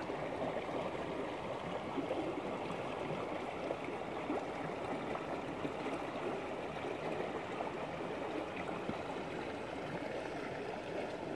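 Creek water running steadily, an even rushing with no breaks.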